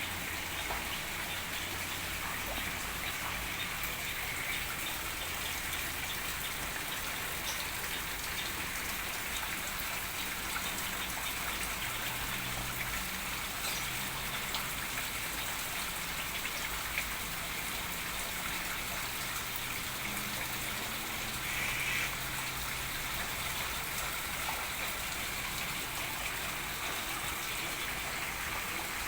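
Steady hiss and patter of falling water, with one short, slightly louder note about three-quarters of the way through.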